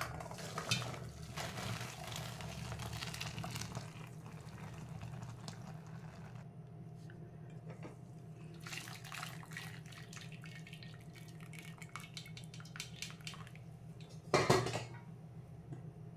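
Boiled noodles and their cooking water poured into a stainless-steel colander set in a wide steel pan: water splashing through the holes for the first few seconds, then draining and dripping, with clinks of steel on steel and a louder clank near the end.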